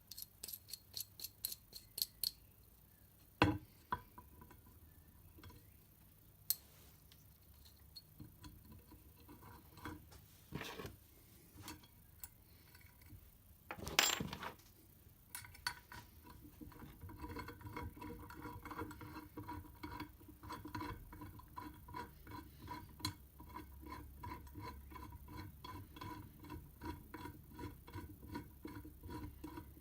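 Hand tools clicking and knocking on metal while a cast iron table extension is bolted onto a bandsaw table: a quick run of clicks at the start, a few separate sharp knocks, then steady rapid ticking through the second half, like a ratchet being worked.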